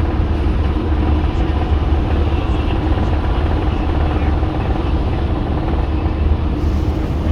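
A car travelling at motorway speed, with steady low road and engine rumble.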